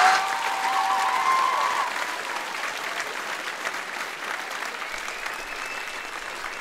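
Theatre audience applauding at the end of a song, with cheering in the first two seconds; the clapping then settles to a steadier, quieter level.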